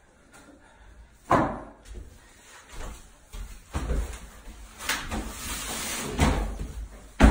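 Steel plastering trowel knocking and scraping against a hawk loaded with bonding plaster as the plaster is cut and worked: about half a dozen scattered knocks and thuds, the loudest right at the end.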